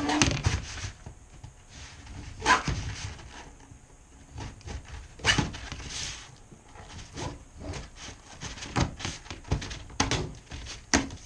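Utility knife scoring a peel-and-stick vinyl plank along a metal straightedge, with a scratchy scraping and a handful of sharp knocks and clicks, the loudest about two and a half and five seconds in, as the plank and ruler are handled and the plank is bent along the score line.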